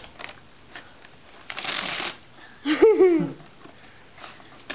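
Wrapping paper rustling and crinkling as a dog tears at a present, in scattered light crackles with one denser burst about a second and a half in. A short high, wavering voice-like sound follows about three seconds in.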